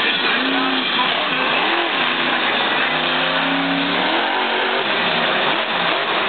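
Monster truck's supercharged V8 revving hard, its pitch rising and falling several times as the driver works the throttle through a wheelie.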